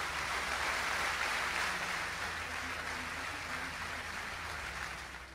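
Large audience applauding, a steady wash of clapping that eases off slightly near the end.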